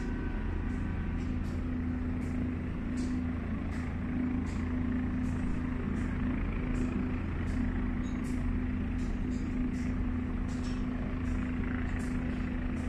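Steady low engine drone with a constant hum, and faint high ticks about every three-quarters of a second.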